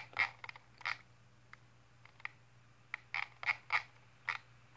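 Irregular soft clicks and taps of computer keys being pressed, about a dozen scattered through the pause, over a low steady hum.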